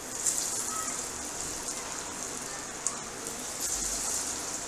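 Chana dal pakoda patties sizzling as they deep-fry in hot oil in a steel kadai. The sizzle starts suddenly as the batter goes in, and a few sharper pops sound through it.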